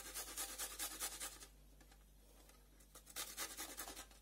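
Garlic clove rubbed on the fine side of a stainless steel box grater: rapid scratchy rasping strokes, in two spells with a pause of about a second and a half between.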